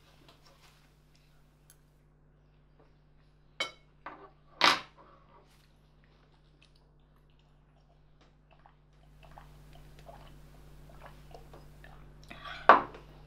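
Metal forks clinking and scraping against ceramic dinner plates, with sharp clinks about three and a half and four and a half seconds in and a louder one near the end.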